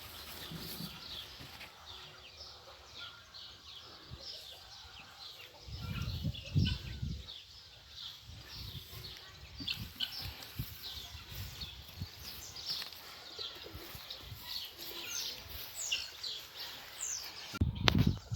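Small birds chirping, many short high calls falling in pitch, repeating throughout. There are a few low thumps about six seconds in and again near the end.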